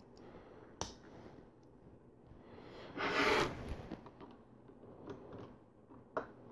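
Faint clicks of small plastic LEGO pieces being handled and set down, with one short breathy hiss about three seconds in.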